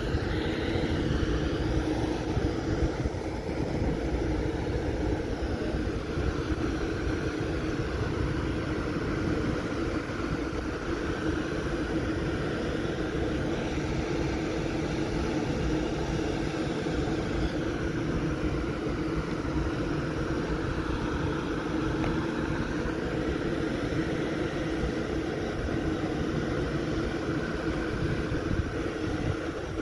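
CPTM Série 2100 electric multiple unit standing powered up at the platform, its onboard equipment giving a steady, even hum.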